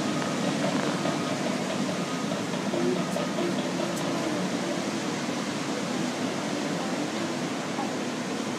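Bulldozer's diesel engine running steadily at a distance, over a constant wash of noise.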